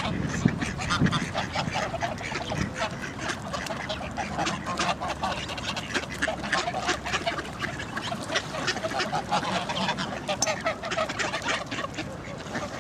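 A flock of ducks and geese calling, a continuous chatter of many short overlapping honks and quacks.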